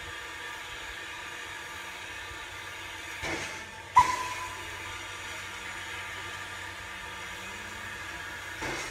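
Small steam tank locomotive moving slowly with a steady hiss of steam and a few soft exhaust puffs. About four seconds in comes one sharp metallic clank that rings briefly.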